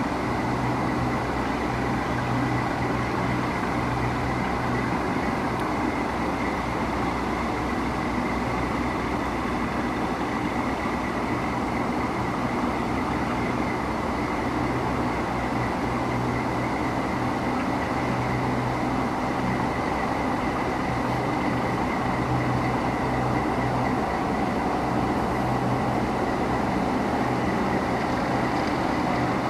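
A diesel locomotive running with a low steady hum that swells and eases as it hauls passenger cars across a high steel trestle, under a constant rushing noise.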